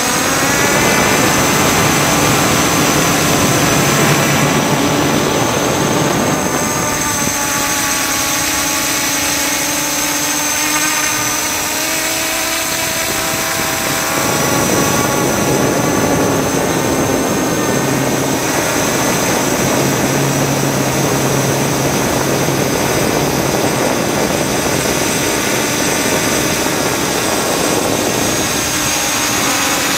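Multirotor drone's electric motors and propellers heard from the onboard camera: a loud whine of several tones that waver up and down in pitch as the throttle changes, over a steady rushing noise.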